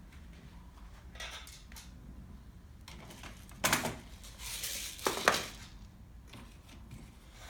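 Small tools and parts being handled on a rod-building workbench: light rustling, a sharp knock, a brief hiss-like rustle, then two more sharp knocks close together about a second and a half later.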